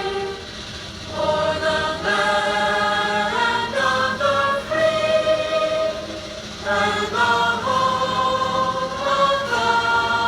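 A large group of schoolchildren singing a patriotic song together in unison, holding long notes with short pauses between phrases.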